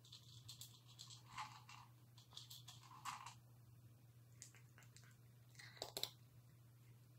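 A cat crunching dry kibble, in faint crisp spurts with a pause in the middle, the sharpest crunches near the end, over a low steady hum.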